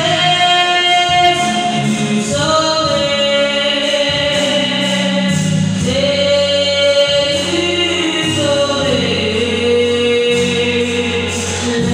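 Gospel song: voices singing long held notes in harmony over a bass line that changes every second or two.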